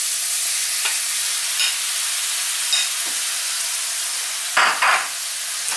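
Thin slices of raw meat frying in hot oil in a steel wok: a steady sizzling hiss with a few small pops. There is a louder surge of sizzle about four and a half seconds in as more slices go in.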